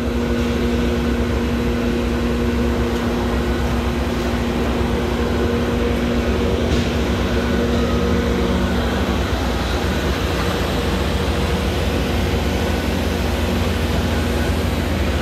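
Steady machine drone, like an engine running, with a low hum and a couple of steady tones; the tones drop out about nine seconds in and a lower one takes over.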